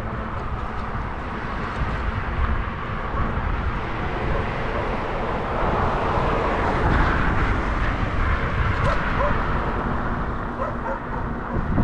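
Wind buffeting the microphone of a camera carried on a moving bicycle: a steady, heavy rumbling noise that swells about seven seconds in.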